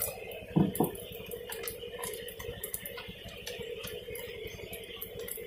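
Scattered light clicks and taps of kitchen utensils and packing at a street food stall, with one louder knock about half a second in, over a steady low hum.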